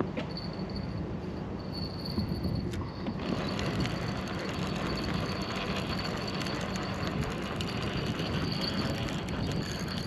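Fishing reel being wound in to retrieve a bottom rig, a steady whirring with a faint high whine from the reel, over a constant low rushing noise.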